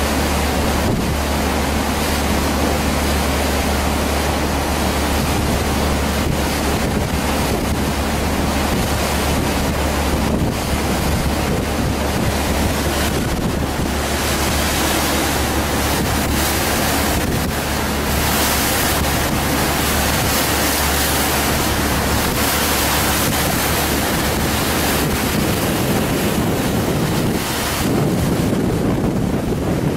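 Wind buffeting the microphone on a moving riverboat, a steady rushing noise, over a constant low drone from the boat.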